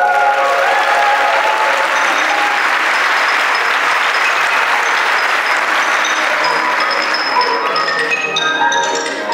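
Audience applauding over light background music with a mallet-percussion tune. The applause swells early on and thins out near the end, leaving the music more clearly heard.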